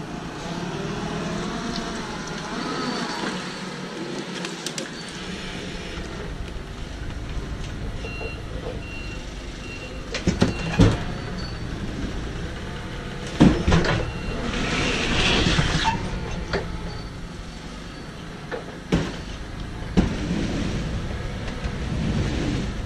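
Forklift running as it carries a pallet into a van's load bed and sets it down, with short high beeps now and then and a steady low rumble. Sharp knocks and thumps from the pallet and forks against the van floor come several times, and there is a brief hiss midway.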